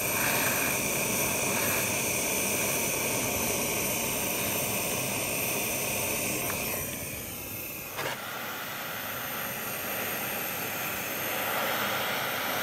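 Gas soldering torch flame hissing steadily as it heats a gold bangle to a glow, with a single sharp click about eight seconds in.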